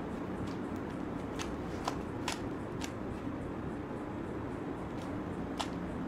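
A plastic 3x3 Rubik's cube being turned by hand, its layers clicking and clacking as they rotate. The sharp clicks come in a cluster a little after a second in and once more near the end, over a steady low hum.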